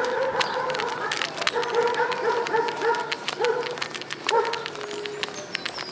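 A dog whining in several drawn-out cries, one after another, with short gaps, over scattered sharp clicks.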